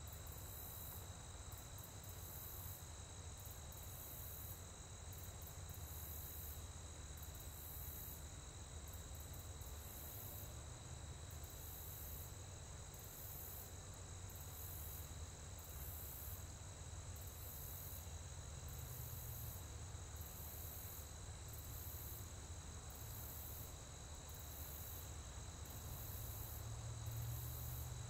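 Faint outdoor ambience at a natural gas processing plant: a steady low hum of plant equipment under a steady high whine, with insects chirping in regular pulses. The hum grows a little louder near the end.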